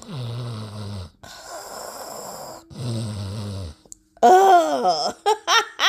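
Put-on snoring from someone pretending to be asleep: two long, low snores with a breathy exhale between them. A little after four seconds in, a woman's voice lets out a loud, falling groan.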